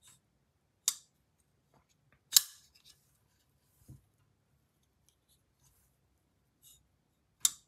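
Brown Knives Cortex XL folding knife being flicked open and shut by hand. Its blade snaps sharply three times, with a few fainter clicks of the action between.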